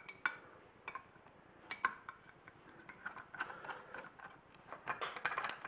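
Screwdriver clicking, tapping and scraping against the metal terminal block inside a service fuse holder as it is worked loose: irregular light clicks, sparse at first and busier in the second half.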